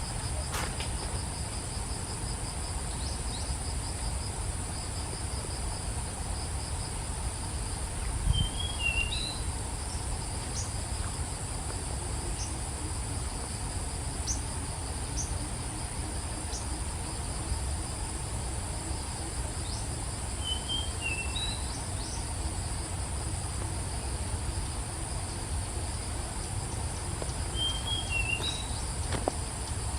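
A steady, high-pitched chorus of insects singing without a break, with a second, pulsing insect trill beneath it in the first half. A bird gives a short chirping phrase three times, about every ten seconds.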